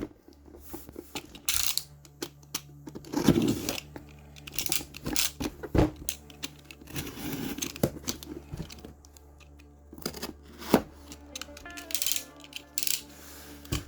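A parcel being unpacked by hand: packaging rustling and tearing, with small paint bottles clicking and knocking against each other, over a steady low hum.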